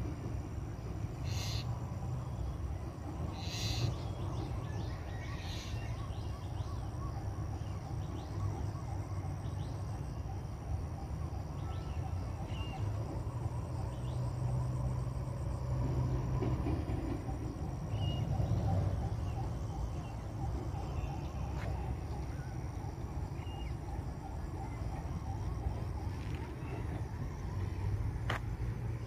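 Outdoor ambience: a steady low rumble with scattered short bird chirps, a few brief rustling bursts in the first few seconds and a single click near the end.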